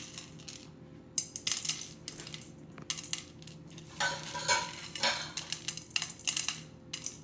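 Play utensils and dishes clinking and clattering in irregular clicks as a child handles and stirs them in a bowl, starting about a second in.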